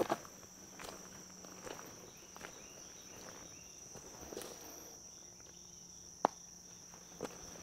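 Footsteps on a woodland trail at a steady walking pace, about one step every second, over a steady high-pitched insect chorus, with one sharper click about six seconds in.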